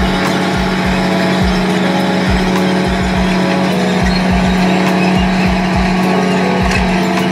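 Background music with a driving beat: low kick-drum thumps under a held low note and a line of pitched notes that change about every half second.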